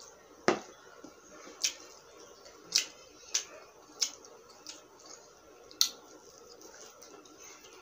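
Close-miked eating sounds from a person eating with her hands: sharp, wet mouth clicks and smacks while chewing, coming irregularly about once a second.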